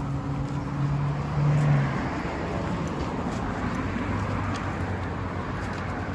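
Road traffic: a motor vehicle's engine hums steadily over the noise of the street, swelling briefly about a second and a half in, then settling to a lower hum.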